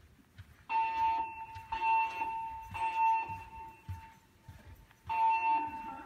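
Siemens MXL-V voice evacuation fire alarm sounding its temporal evacuation tone through the building's speakers: three steady beeps about a second apart, then a pause, with the next group of beeps starting near the end. This three-pulse temporal pattern is the standard evacuation signal.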